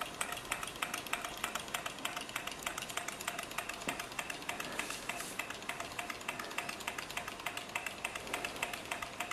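Aibecy low-temperature gamma-type Stirling engine running fast on a cup of hot water, its flywheel and linkage giving a rapid, even clicking. Ice on the top plate widens the temperature difference, which drives it faster.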